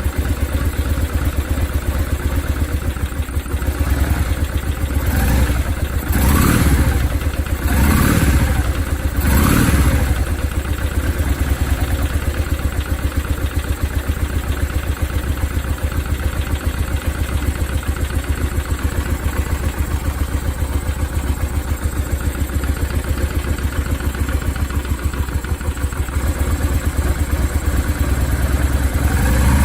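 Honda Steed 400 V-twin motorcycle engine running through its stock muffler, blipped four times in quick succession and then idling steadily. A light clattering rattle ("kara-kara") is heard from the replacement engine, a noise the owner fears means the engine will have to be swapped again.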